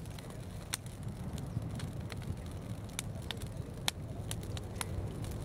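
Wood fire crackling, with irregular sharp pops over a steady low rumble.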